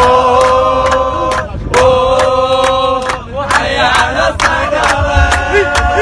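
A group of men chanting a victory song together in long held phrases, with steady rhythmic hand clapping.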